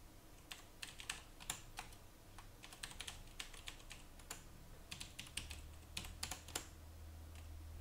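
Typing on a computer keyboard: faint, irregular key clicks in quick runs. A low steady hum comes in about five seconds in.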